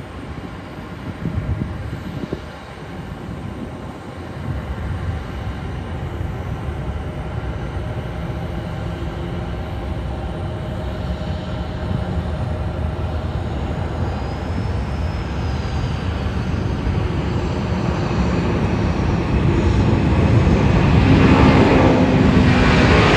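A McDonnell Douglas MD-11F tri-jet freighter's engines at takeoff power: a low rumble that grows steadily louder as the aircraft rolls down the runway, becoming a loud jet roar in the last few seconds as it rotates for lift-off.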